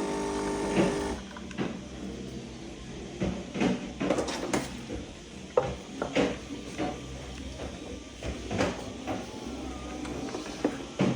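Coffee machine running with a steady buzz that stops about a second in. A low hum follows, under scattered clicks and knocks.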